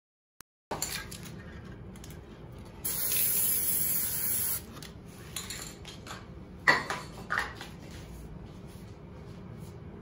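Aerosol spray-paint can spraying paint onto the water for hydro dipping: one steady hiss lasting about a second and a half, followed by two brief, sharper sounds about seven seconds in.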